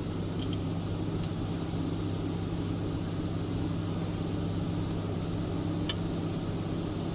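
Steady low mechanical hum of factory machinery running, with a few faint light clicks of metal parts or tools.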